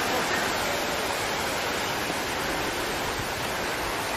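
Steady rushing noise of tsunami floodwater spreading over the ground.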